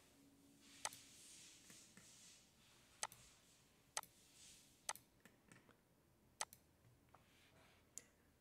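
Computer mouse clicking: about half a dozen sharp single clicks spaced roughly a second apart, with a few fainter clicks between them, as the points of an outline are placed.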